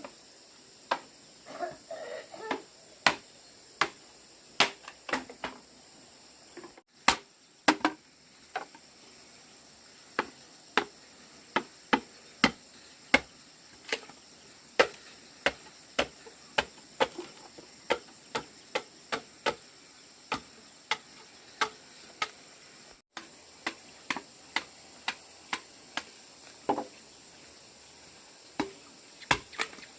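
A steady run of sharp knocks or taps, about one to two a second, with a few short pauses.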